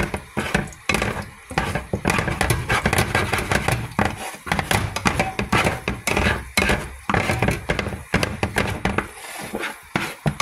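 A plastic spatula scraping and knocking against a nonstick frying pan while scrambled eggs are stirred in hot grease, making an irregular run of clatters and scrapes.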